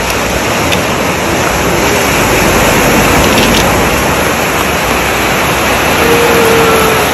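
Steady rushing noise of wind and surf at the shore.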